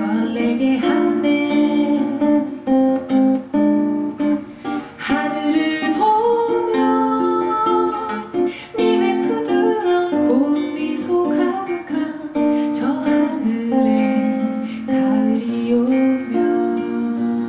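Woman singing a slow bossa nova song with a nylon-string classical guitar accompanying her, in a small room.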